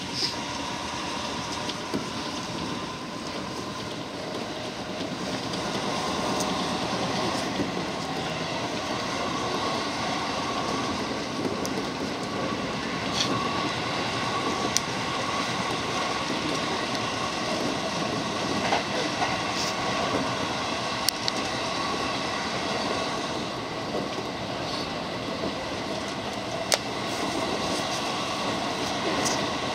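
Running noise of a JR 205 series commuter train heard from inside the carriage: a steady rumble of wheels on rail with a faint steady whine, and a few sharp clicks scattered through it.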